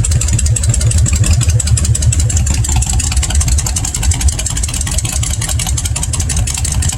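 Honda VTX1300 V-twin motorcycle with an aftermarket exhaust idling steadily with an even, loud beat.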